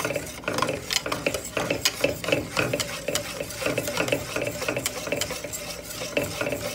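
Wire whisk stirring a thickening butternut squash pudding mixture in a stainless steel pot, with rapid, continuous clicking and scraping of the wires against the metal bottom and sides.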